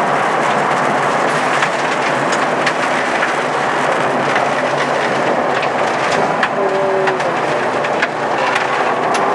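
Audi 80 quattro rally car driving fast on a gravel stage: a loud, steady engine-and-road din heard inside the cabin, with gravel and stones repeatedly ticking and pinging against the car's underside.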